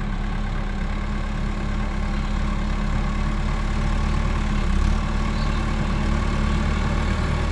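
Compact farm tractor's engine running steadily while it drags an implement through the soft soil of a fishpond bed: a continuous low hum.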